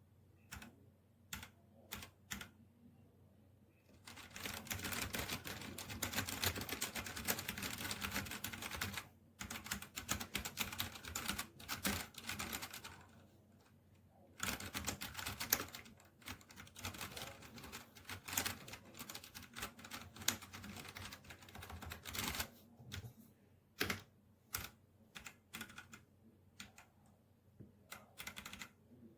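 Typing on a Redragon K617 Fizz 60% mechanical keyboard. A few separate keystrokes come first, then long runs of fast, continuous typing broken by short pauses, and near the end it thins out to scattered single key presses.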